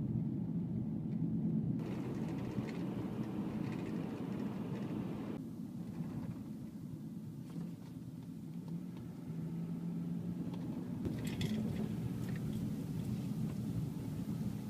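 Steady low rumble of road and engine noise inside a moving car. The higher part of the noise changes abruptly a couple of times, about two seconds in and again a few seconds later.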